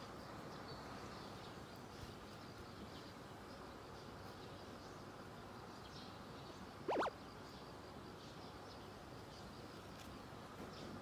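Faint, steady outdoor insect hum through a screened window, with one short rising chirp about seven seconds in.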